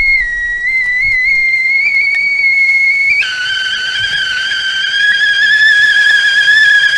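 Tea kettle whistling at the boil. A steady high whistle, about three seconds in, shifts to a lower, wavering, two-note whistle with a faint hiss of steam.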